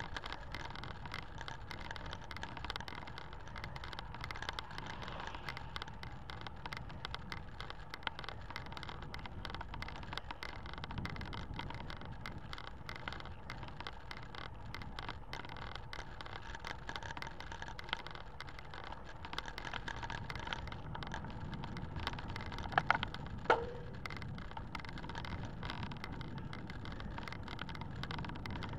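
Road bicycle being ridden uphill on asphalt, picked up by a camera mounted on the rider or bike: steady tyre and wind noise with many small rattling ticks. A couple of sharper clicks or squeaks stand out about four-fifths of the way through.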